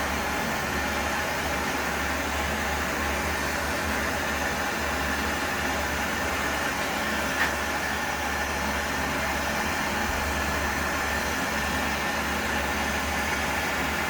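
Gas torch flame hissing steadily while it heats a solid mild-steel rivet towards red heat, with a low steady hum underneath and one small tick about halfway through.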